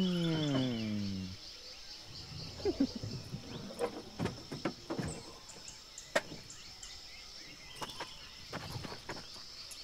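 Scattered light knocks, bumps and rustles of two people climbing out of a plastic ride-on cart and stepping down onto a dirt trail, over a steady high background hiss. It opens with a pitched sound falling over about a second and a half.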